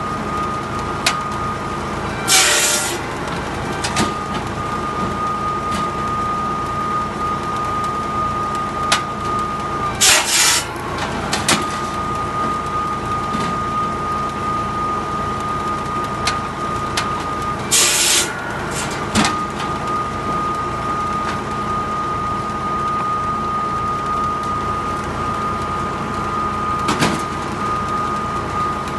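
PTO-driven saw bench's 550 mm circular blade spinning with a steady high whine over a tractor engine running steadily. Three times, about two, ten and eighteen seconds in, the blade cuts through a log in a loud, rasping burst of about a second that breaks the whine, with small knocks of wood on the table between cuts.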